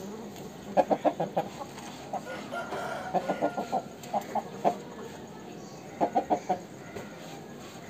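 Aseel chicken clucking in several short runs of quick, sharp clucks: one about a second in, two more around the middle, and one near the end.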